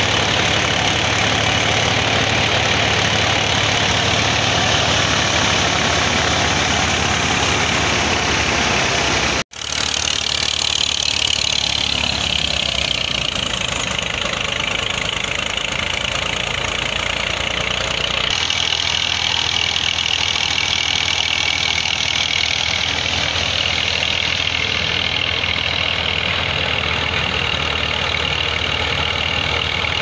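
Tractor-powered wheat thresher running at work: a loud, steady mechanical drone of the tractor engine under the rushing rattle of the threshing machine as it threshes wheat. There is a brief break about nine seconds in, then the same sound resumes.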